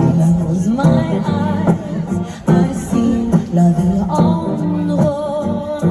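Music: a song with a sung melody over acoustic guitar and a steady beat.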